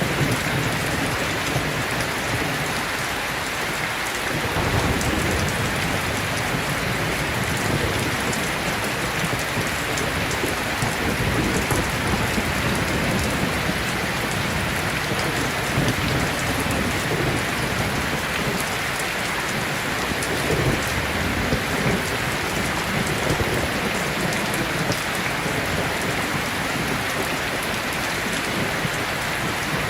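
Steady rain, an even hiss of drops hitting surfaces, with a low rumble underneath that swells and fades.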